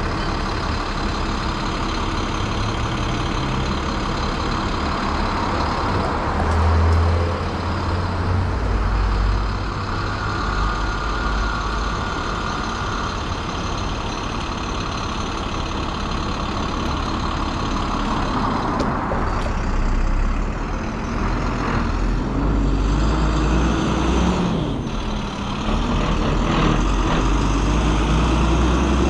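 City street traffic with heavy vehicles such as trucks or buses running past, a steady low rumble that swells about six seconds in. A steady high whine holds for a few seconds about ten seconds in, and an engine note rises in pitch near the end.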